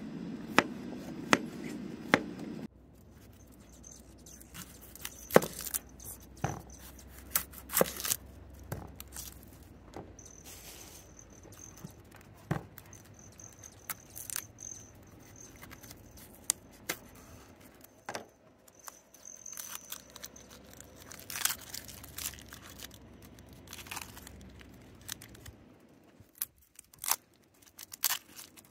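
Kitchen knife chopping zucchini on a thin plastic cutting board, a quick run of sharp taps at the start. Then comes scattered knife taps and cuts into an onion and the dry crinkle and tear of papery onion skin being peeled off.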